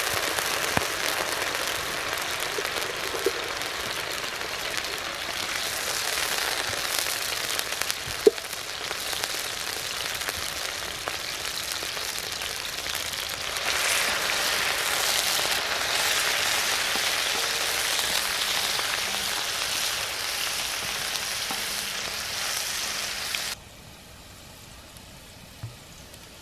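Diced parboiled potatoes sizzling in olive oil on a hot steel fire-bowl griddle over a wood fire: a steady frying hiss with one sharp click about a third of the way in. The sizzle gets louder about halfway through as the potatoes are stirred and turned, then drops suddenly to a much fainter sizzle near the end.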